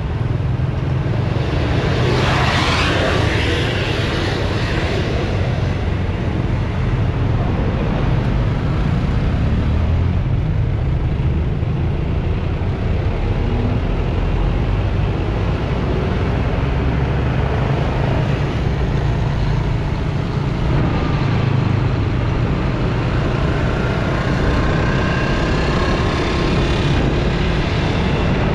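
Steady road traffic: engines and tyres of passing vehicles, tour buses among them, with a constant low rumble. One vehicle passes close and loud about two seconds in, and a faint rising whine comes near the end.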